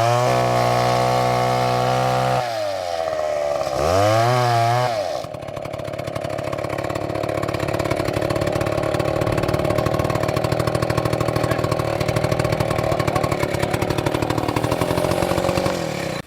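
Stihl chainsaw engine at high revs. It eases off and revs back up within the first five seconds, then runs lower and rougher for the rest, as under load in a cut. It stops abruptly at the end.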